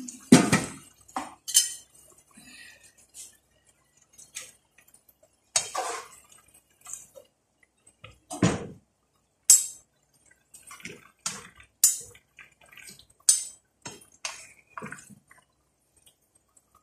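Metal spoon and slotted skimmer clinking and scraping against a frying pan as cabbage and potatoes are stirred and tossed, in about a dozen scattered knocks at irregular intervals.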